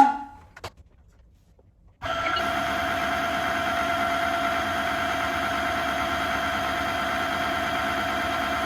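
A sharp clack, then about two seconds in a cordless wet-dry floor vacuum (Tineco Floor One S3) switches on and its motor runs steadily with an even whine.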